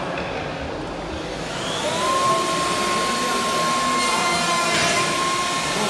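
Mobile dust extractor's motor spinning up about two seconds in, then running with a steady whine.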